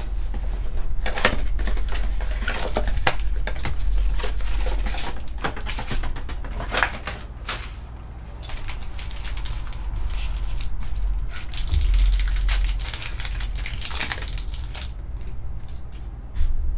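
Plastic wrapping and trading-card packs crinkling and tearing as they are ripped open, with dense crackling rustles over a steady low hum.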